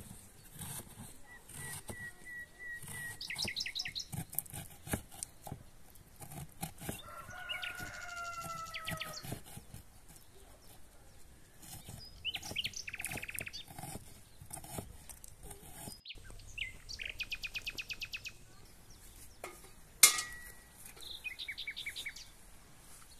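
Irregular taps of a knife chopping onion on a wooden cutting board, with birds chirping and chickens calling in several short rapid trills. A single sharp knock about twenty seconds in.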